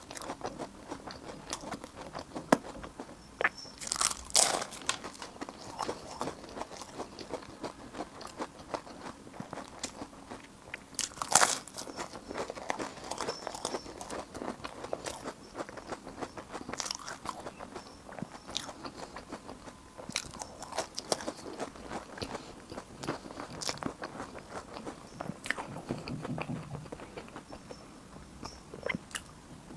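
Close-miked eating of Chinese food: steady chewing with small wet smacks and clicks, and a few sharp crunchy bites, the loudest about four seconds in and again around eleven seconds.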